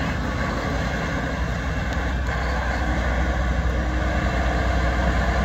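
Farm tractor engines running steadily as parade tractors pass close by, a deep low hum that grows a little louder near the end as a big tractor comes nearer.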